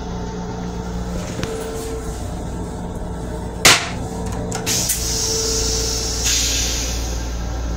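Steady rumble of a moving M7 rail car. About four seconds in there is one loud clack as the toilet seat is lowered onto the stainless-steel bowl, then a couple of small clicks. A hiss of rinse water spraying into the bowl follows and grows louder near the end as the toilet's flush cycle begins.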